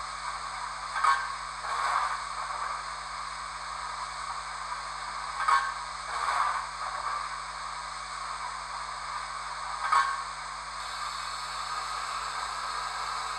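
Coal shovelling sound effect from a Hornby W1 model locomotive's HM7000 sound decoder, played through the model's small speaker over a steady hiss: a shovel scrape followed by the swish of the coal thrown, twice about four and a half seconds apart, then a third scrape. Near the end a steadier hiss sets in, the injector valve effect.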